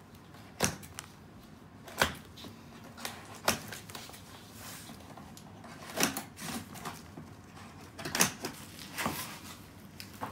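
A flat cardboard box being cut open with scissors and unpacked: a handful of sharp knocks and taps of cardboard and scissors, with scraping and rustling of tape, cardboard flaps and bubble wrap.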